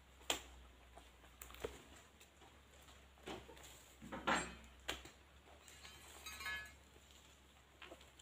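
Oil palm fruit bunches being speared with a long spiked pole and hoisted onto a loaded truck: a few scattered sharp knocks and thuds, with one louder, rougher sound a little past halfway.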